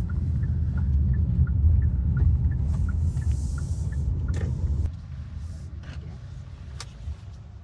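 Road rumble inside a moving vehicle's cabin, with faint regular ticking. The rumble drops sharply about five seconds in, as the vehicle slows or stops.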